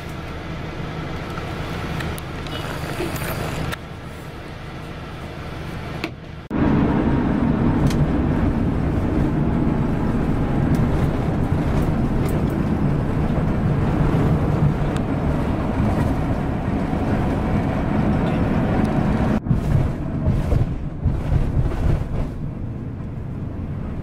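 Steady engine and tyre rumble of a minibus driving on a highway, heard from inside the cabin. It turns noticeably louder about six and a half seconds in.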